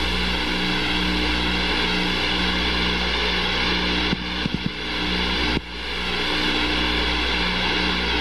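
Steady aircraft engine noise, a constant drone with a whine in it. It dips briefly with a few sharp clicks about four to five seconds in, then cuts off for a moment at about five and a half seconds and comes back.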